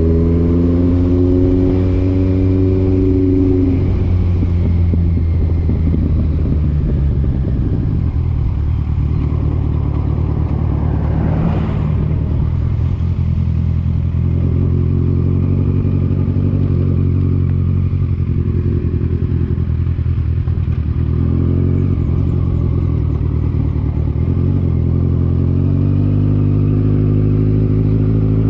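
Vehicle engine running on the move. Its pitch rises over the first few seconds as it speeds up, then holds fairly steady, with a brief whoosh about twelve seconds in.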